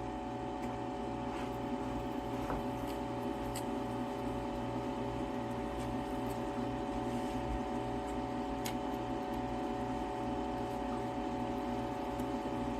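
COWSAR countertop nugget ice maker running while it makes ice: a steady machine hum with several held tones over a rushing noise and an even, fast low pulsing.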